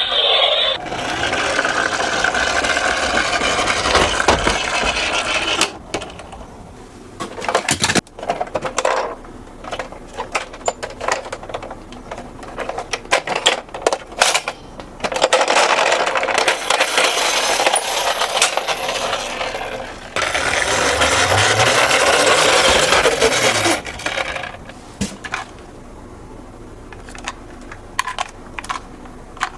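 Die-cast toy cars rolling down a slope track: three long stretches of rattling rolling noise, with scattered clicks and clatter of the small metal cars between them.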